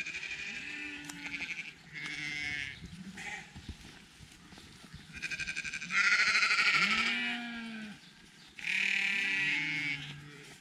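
Goats bleating again and again, about six wavering cries of around a second each; the loudest and longest comes about six seconds in.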